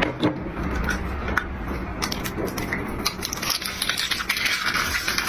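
Close-up eating sounds: chewing with many small clicks and scrapes of utensils on dishes, the noisy chewing getting stronger toward the end.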